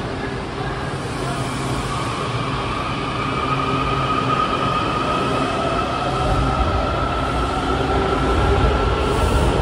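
Washington Metro 7000-series train pulling away from the platform: the traction motor whine climbs steadily in pitch as it accelerates, and the wheel rumble grows louder toward the end.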